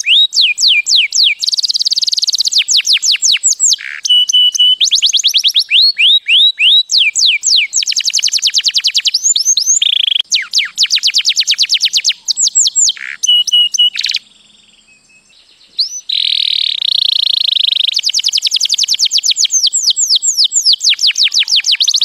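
White domestic canary singing: fast, high trills of repeated downward-sweeping notes, the note type changing from phrase to phrase, with a few short held whistles. The song breaks off for about two seconds past the middle, then resumes.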